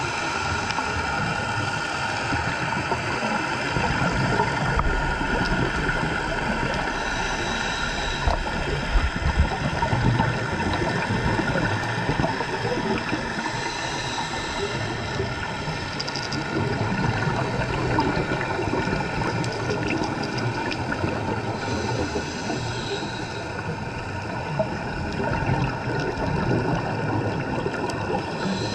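Underwater sound of a scuba dive: a steady wash of bubbling, gurgling water and hiss, with a faint steady hum under it.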